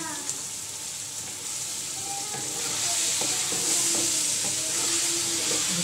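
Kachnar buds and chicken sizzling in hot oil in an aluminium pot, with a spatula stirring and scraping against the pot as they are stir-fried (bhunai) on high heat. The sizzle grows louder about two seconds in, once the stirring gets going.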